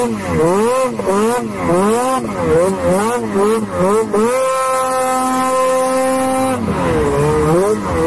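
Ski-Doo Summit 850's two-stroke twin engine, fitted with a full titanium exhaust, revving up and down in quick throttle blips about twice a second while riding through deep powder. About four seconds in it holds steady revs for roughly two seconds, then the blipping starts again.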